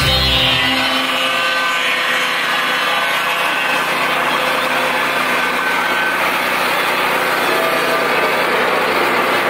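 Lucas Mill swing-blade portable sawmill running, its small engine held steady under load as the circular blade cuts along a log.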